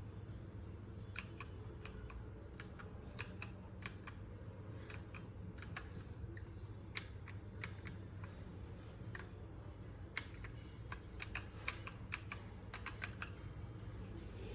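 Typing on an EvoFox Katana X2 TKL mechanical keyboard with linear red switches: irregular keystroke clicks that thin out for a moment past the middle, then come faster, over a steady low hum.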